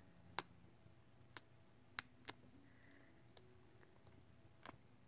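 A few faint, sharp clicks and taps as a small plastic tub of stiff slime is handled, over near silence.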